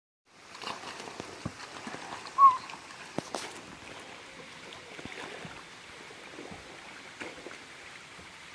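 Water running and splashing at a waterfall, an even rush with many small drip-like pops. About two and a half seconds in, a short high squeak is the loudest sound.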